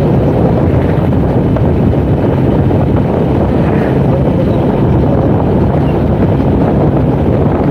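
Wind rushing over the microphone of a motorcycle being ridden at speed, a steady loud rumble with the bike's engine and road noise underneath.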